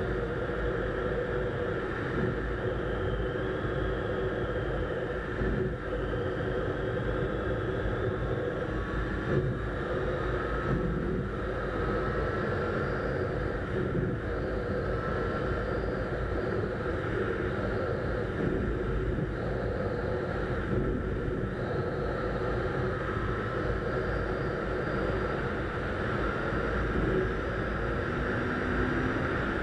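Honda CBR600 inline-four engine running at highway speed as the bike speeds up, its pitch climbing slowly, with wind and road rush underneath.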